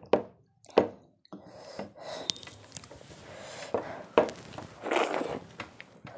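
Fingers mixing soft khichuri on a plate: uneven wet squishing, with two sharp clicks in the first second.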